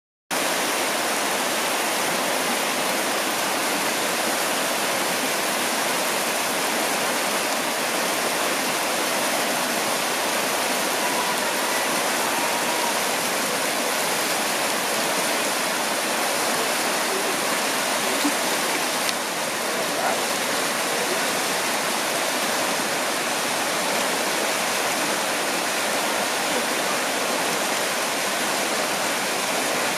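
A shallow, rocky river rushing over stones in small rapids, a steady rush of water.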